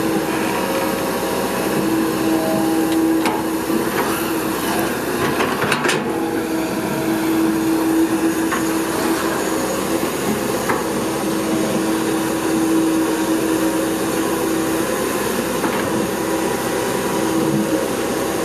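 Komatsu PC200-8 hydraulic excavator working: steady diesel engine and hydraulic drone with a continuous whine that strengthens at times as the arm moves, and a few sharp metallic clanks about four to six seconds in.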